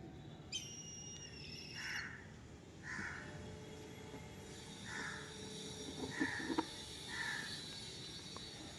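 A crow cawing repeatedly: five short caws, roughly a second apart.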